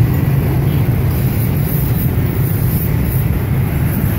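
Steady din of dense motor-scooter traffic passing close by, many small motorbike engines running at once.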